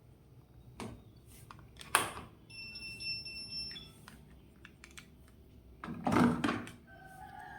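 Front-load washing machine being switched on: a sharp click from the control panel button, then the panel's steady electronic beep tone for about a second and a half, followed by a few lighter clicks and a louder knock about six seconds in.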